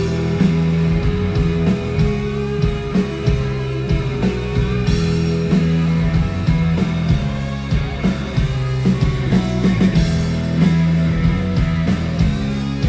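Indie rock band playing live: an instrumental passage with guitar over bass and drums, at a steady loud level.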